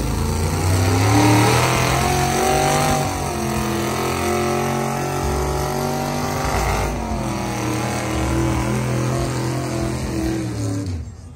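Truck engines revving, their pitch rising and wavering, loudest a second or two in and then running on more evenly, dropping away just before the end.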